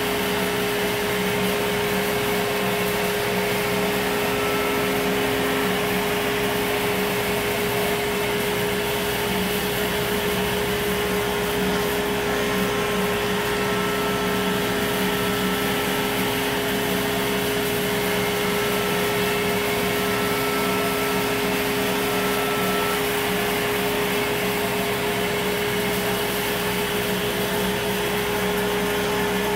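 CNC router spindle cutting an aluminum composite (e-panel) sheet while a dust collector sucks chips through the dust shoe: a steady whine over a constant rush of air.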